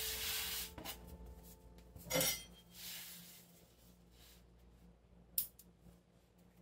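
Hand sweeping flour across a stone countertop with a soft brushing rustle, then a metal bench scraper handled and pressed down through dough. A single sharp clink of the steel blade on the counter comes near the end.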